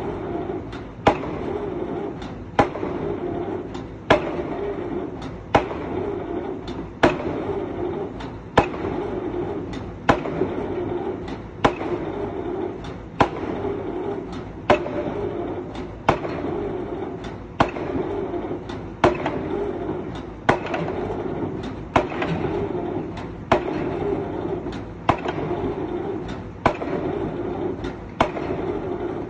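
Excavator-mounted drop hammer striking over and over, one sharp bang about every second and a half, over the steady running of the excavator's engine.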